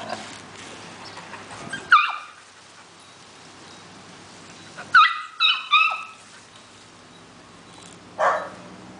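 Dog barking in play: one sharp, high bark about two seconds in, three quick barks around five seconds, and one more, rougher bark near the end.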